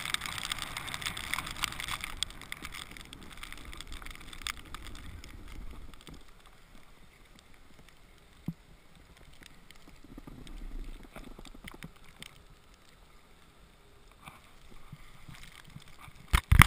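Snowboard sliding and scraping over snow: a steady hiss with scattered clicks, dropping much quieter after about six seconds. In the last second, loud close knocks and rubbing from a hand handling the camera.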